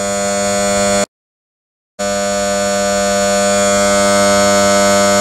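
Starter spinning a VW 2.0-litre turbo four-cylinder (CCTA) engine over during a compression test, a steady hum with many overtones. It cuts out completely for about a second shortly after the start, then resumes and slowly grows louder.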